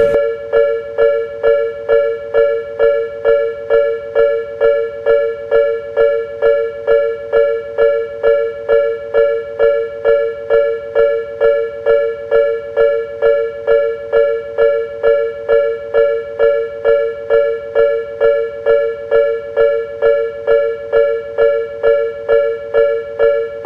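Japanese railroad crossing warning bell: an electronic two-tone 'kan-kan' alarm ringing steadily at about two strokes a second. This is the signal that a train is approaching or passing.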